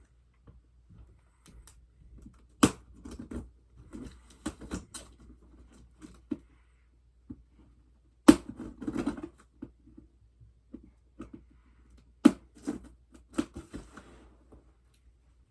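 Packages being handled and opened by hand: scattered scraping and rustling with three sharp knocks, about three, eight and twelve seconds in, the middle one loudest.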